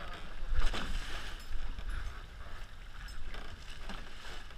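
Water rushing and splashing against a Hobie 16 catamaran's hulls under sail, with wind rumbling on the microphone. A loud splash comes about half a second in and a smaller one a second later.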